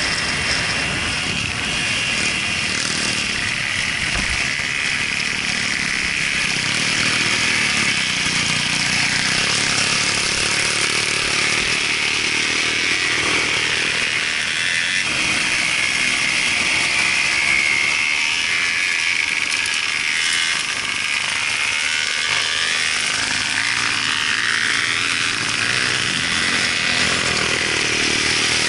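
Dirt bike engine running steadily under way on a loose gravel road, heard from on the bike, its pitch rising and falling several times in the second half as the throttle is worked.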